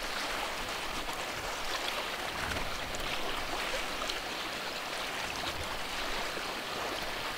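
Sea water washing and lapping: a steady hiss of small waves on open water.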